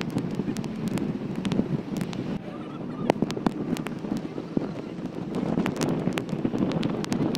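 Wind rushing across a phone microphone held at the open window of a moving vehicle, over a steady rumble of road and engine noise, with frequent sharp crackles and ticks.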